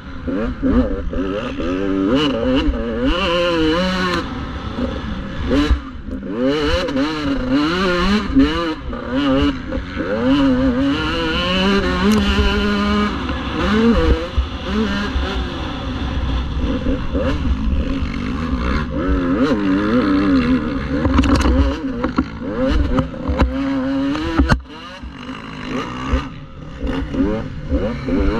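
Motocross bike engine ridden hard on a dirt track, heard from on the bike. The revs climb and fall over and over with the throttle. Near the end the engine drops back sharply and then builds again.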